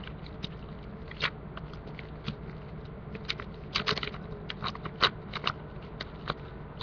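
Yu-Gi-Oh trading cards handled and flipped through by hand: irregular small clicks and snaps of card against card, several a second, over a low steady hum.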